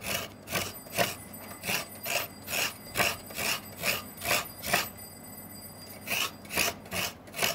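Fresh coconut flesh being grated out of a half shell with a hand-held coconut scraper (kuruni), in short, even scraping strokes about two a second. There is a pause of about a second just past the middle before the strokes resume.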